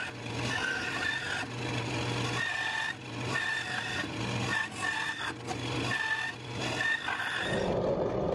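Bandsaw running, its blade making a string of short cuts through a small hardwood block, each cut adding a brighter whine over the motor hum. Near the end it gives way to a drill press boring into the block.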